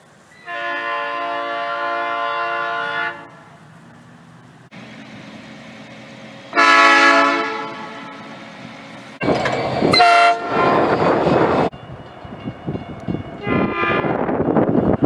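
Train horns sounding in a string of short clips: a steady blast of about three seconds, a short loud blast that fades away, then further blasts over the noise of a passing train.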